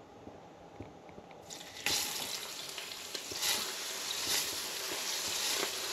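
Seasoned crappie fillets laid into hot tallow in a cast iron skillet: quiet at first, then a sudden sizzle about two seconds in as the first fillet hits the fat. The sizzle keeps going and swells again a few times as more fillets go in.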